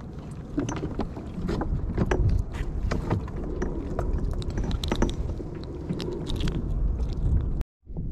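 Low rumble of wind and water around a kayak on the camera's microphone, with scattered sharp clicks and knocks from pliers and hands working a hook into a small live baitfish. The sound cuts out for a moment near the end.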